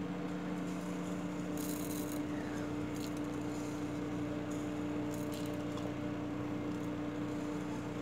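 A steady low electrical hum throughout, with a brief dry rustle about two seconds in and a few light clicks as fennel and cumin seeds are tipped into a mixer jar of soaked chana dal.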